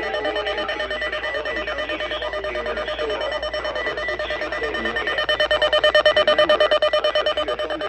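Electronic emergency alert alarm beeping rapidly, about six or seven pulses a second. It grows louder about five seconds in.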